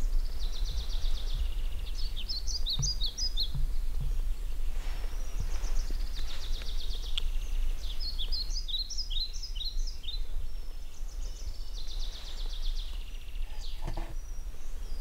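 Songbirds singing: a high trill alternating with a quick run of sharp chirping notes, repeated about three times, over a steady low rumble.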